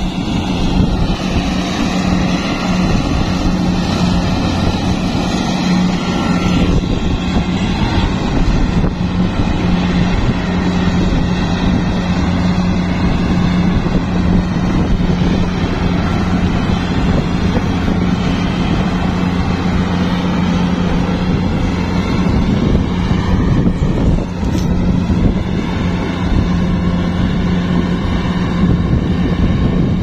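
Kubota DC-70 Plus combine harvester's diesel engine and threshing machinery running steadily while harvesting rice, a constant hum over a dense mechanical rumble.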